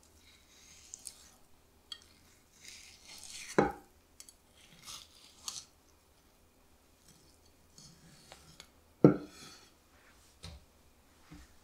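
Kitchen knife slicing and scraping along a striped beakfish fillet to skim off the belly bones, with two sharp knocks about 3.5 s and 9 s in and a few lighter taps.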